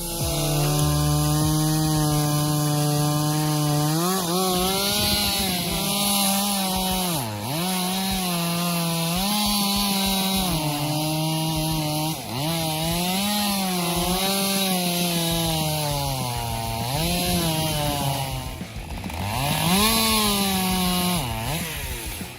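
Two-stroke chainsaw running at high revs while cutting wood. Its engine note holds steady at first, then dips sharply and climbs back several times.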